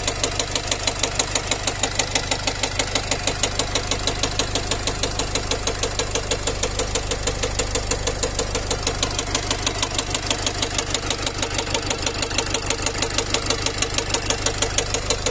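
Nissan X-Trail 2.0 dCi (Renault four-cylinder diesel) running steadily with a rapid, regular heavy knock. The mechanic likens it to the piston striking the valves; the engine turned out to have a failing connecting rod that broke through the block.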